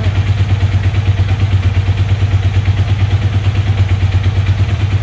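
Motorcycle engine idling steadily with an even low pulse, while its carburettors are balanced against vacuum gauges.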